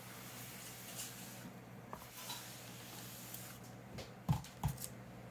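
Faint swish of a small electric travel iron being pressed and slid over a protective paper sheet on a loose Bible page, with two soft knocks near the end.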